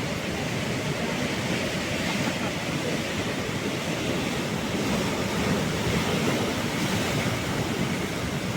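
Sea waves washing onto the shore in a steady rush of surf, swelling slightly around the middle.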